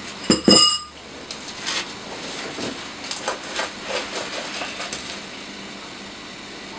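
A short ringing clink from the ceramic mixing bowl and its spoon, then soft squelching and rustling as a lump of fluffy slime is pulled out and kneaded on a plastic sheet.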